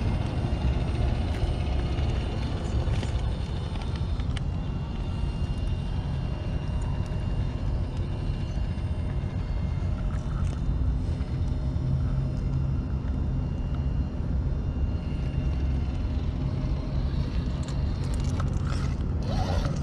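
Trail Honcho RC rock crawler working over rocks: a faint whine from its electric motor and gearing, with occasional clicks against stone, over a steady low rumble. A short scrape near the end.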